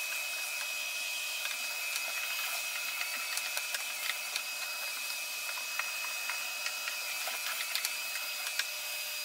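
Vacuum cleaner running with a steady high whine over its rushing air, its hose sucking dust and debris out of the bottom of a wooden radio cabinet, with many small clicks as bits rattle up the hose.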